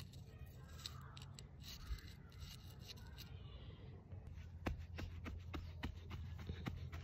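Gloved hand pressing and patting garden soil around freshly planted green onion bottoms: a run of short gritty crunches and scrapes, over a low steady hum.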